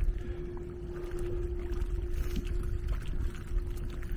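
Wind rumbling and buffeting on the microphone, with a faint steady hum throughout.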